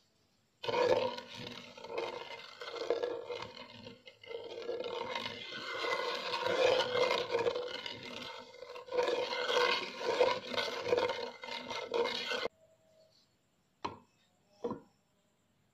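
Wooden spatula stirring and scraping a thin brown-sugar, cocoa and tapioca-flour mixture around a nonstick saucepan, a rough, uneven scraping that stops suddenly near the end. Two light knocks follow as the spatula is set down and the pan handled.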